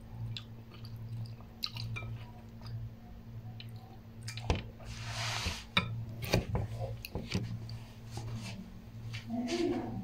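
A metal spoon clicking against a ceramic bowl, with chewing, while someone eats hot instant noodles. A steady low hum runs underneath.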